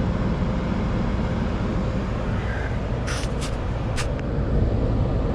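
Nissan's engine running at idle, a steady low rumble, with a few short clicks about three to four seconds in.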